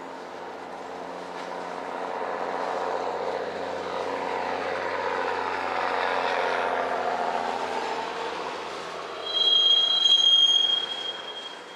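Freight train cars rolling past with a steady rumble and rattle of wheels on rail. About nine seconds in, a high metal-on-metal squeal rises over it for about two seconds and is the loudest part.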